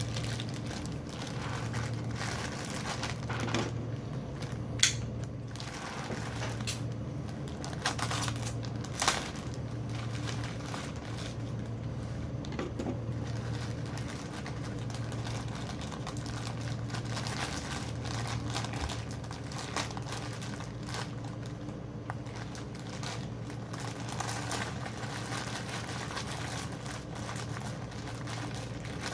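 Cardboard and wrapping being handled as a boxed figure is unpacked: crinkling and rustling with a few sharp clicks in the first ten seconds. Under it runs a low hum that pulses about once a second.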